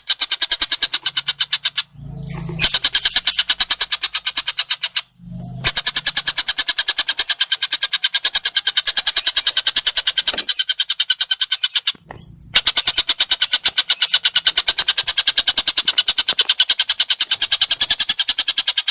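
A songbird's fast, even chatter of rapidly repeated high notes, about ten a second, broken by short pauses about 2, 5 and 12 seconds in, as used in a masteran recording for training caged songbirds.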